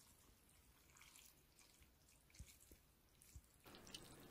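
Near silence with a few faint drips and light ticks as chopsticks lift noodles out of a bowl of jjamppong broth.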